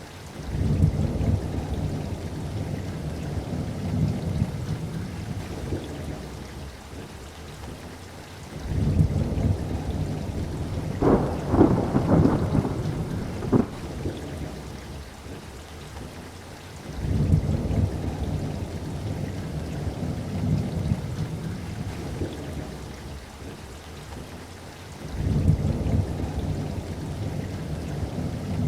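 Steady rain with four long rolls of thunder, one about every eight seconds. The second roll carries sharper, nearer cracks partway through.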